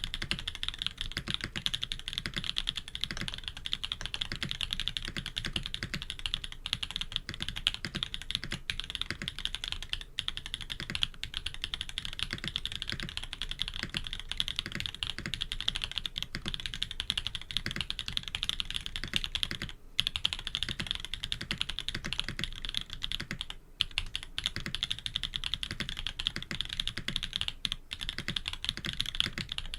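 Continuous fast typing on a K80 custom mechanical keyboard fitted with Jade Black switches, PBT keycaps and an FR4 plate: a dense run of key clacks, broken by a couple of brief pauses about twenty seconds in.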